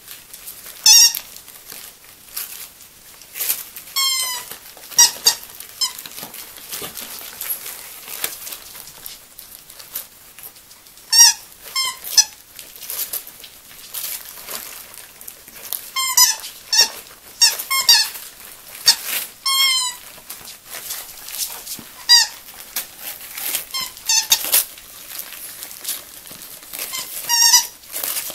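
A squeaky dog toy squeaking in about a dozen short squeals as two Yorkshire terriers bite at it, with wrapping paper crinkling between the squeaks.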